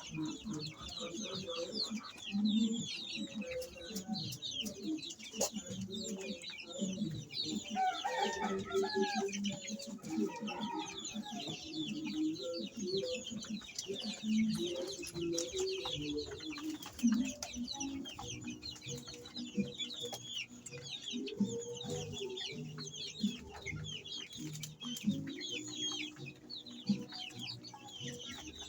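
A flock of layer chickens in a pen, many birds clucking and peeping at once, with a dense chatter of short high peeps over low clucks.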